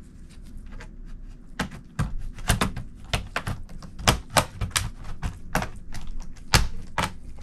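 Plastic bottom cover of an Acer Nitro AN517-51 laptop being pried off by hand, its retaining clips clicking and snapping loose in quick, irregular succession.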